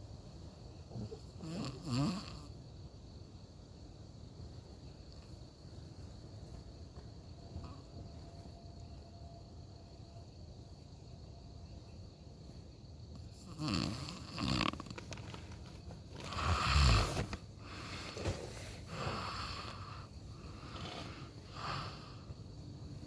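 A person snoring in sleep: two snores near the start, a long lull of quiet breathing, then a run of snores from a little past halfway, the loudest about three quarters of the way through.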